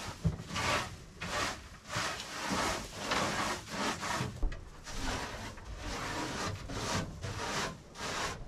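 Rhythmic scraping strokes, about two a second, across a plywood nest-box shelf as old hay and chicken droppings are cleared off it.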